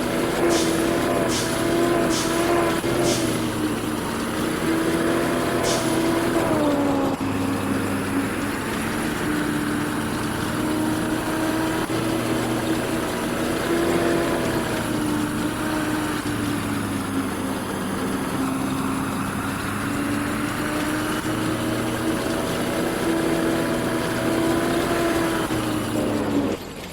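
An engine of harvesting machinery running steadily, its pitch rising and falling slightly as the load changes. Sharp clicks come about twice a second for the first few seconds, with one more a few seconds later.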